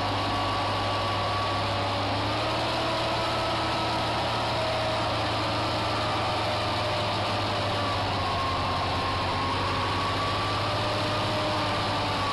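Large diesel farm tractor engines running steadily under heavy load while towing, a low drone with a faint higher whine that wavers slowly in pitch.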